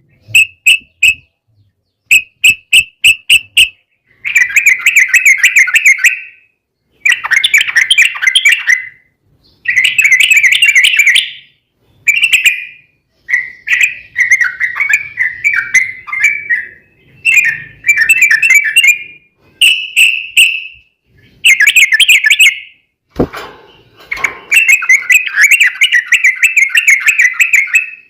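Yellow-vented bulbul (trucukan) singing: burst after burst of fast, rolling chattering phrases with short pauses between them. There is one sharp knock about 23 seconds in.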